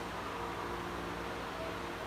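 Steady background hiss with a faint low hum: room tone, with no distinct sound events.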